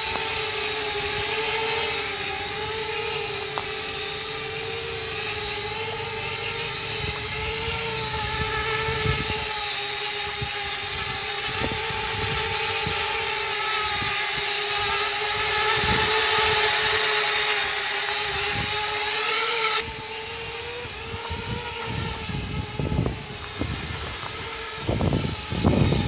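Small homemade cardboard quadcopter's four propellers and electric motors buzzing steadily in flight, a droning tone that wavers slightly in pitch. About twenty seconds in the upper buzz drops back and irregular low rumbles come in.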